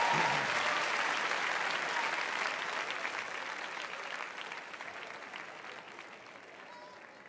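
Studio audience applauding, the clapping dying away steadily until it has nearly faded out by the end.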